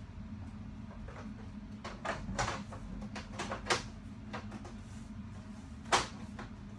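Scattered knocks and clicks of things being handled, a few in quick succession about two seconds in and the sharpest near the end, over a steady low hum.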